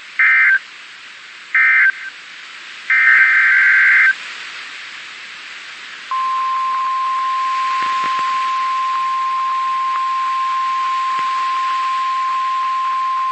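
NOAA Weather Radio Emergency Alert System signal over radio hiss: three short buzzy SAME data bursts, the first two brief and the third about a second long. About six seconds in, the steady single-pitch 1050 Hz warning alarm tone starts and holds, announcing that a weather warning follows.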